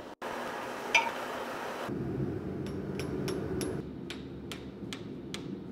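Hand hammer striking red-hot steel on an anvil: about nine quick, light blows, roughly three a second, each with a short metallic ring, over a low steady hum. A steady hiss fills the first two seconds before the blows begin.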